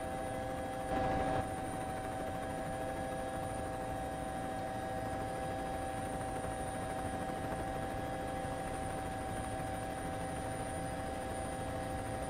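Steady drone of a helicopter heard from on board, a few constant hum tones over an even hiss, with a short louder burst about a second in.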